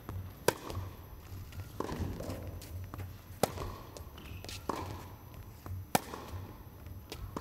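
Tennis rally: sharp pops of racket strikes on a tennis ball, the clearest about half a second, three and a half and six seconds in, with quieter bounces and footfalls on the court between.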